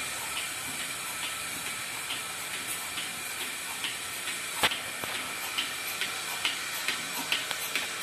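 Bucket milking machine at work on a cow: its pulsator clicks about twice a second over a steady hiss of vacuum air. One louder click comes a little past halfway, and the clicks grow sharper toward the end.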